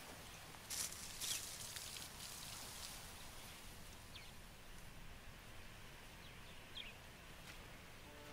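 Faint outdoor ambience of dry grassland: a couple of soft rustles in dry grass about a second in, as a cheetah walks through it, and two faint, short, high chirps later on.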